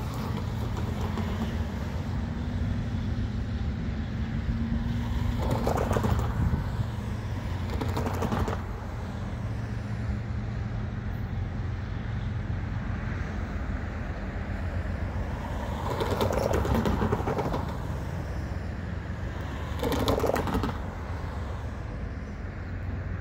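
Low, steady rumble of a diesel freight train running away down the line. A steady engine note fades out about five seconds in, and a few brief noisy swells come and go.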